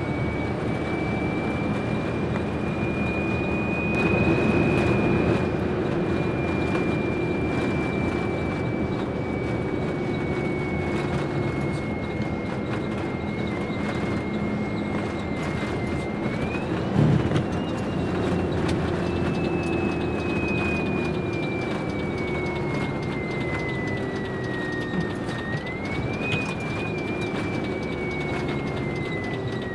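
Isuzu FXZ truck's diesel engine and drivetrain running under way, heard from inside the cab. A high whine slowly sags in pitch and jumps back up twice, with a clunk at the first jump, as gears are changed on the nine-speed non-synchro Road Ranger gearbox.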